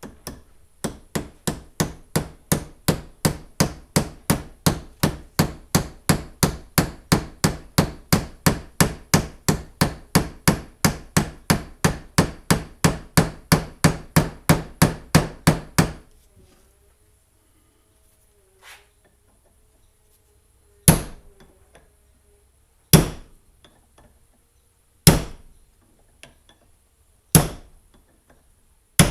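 Hammer striking parts of a trolling motor's lower unit: rapid, even taps, about three a second, for roughly sixteen seconds, then after a pause five single, harder blows about two seconds apart.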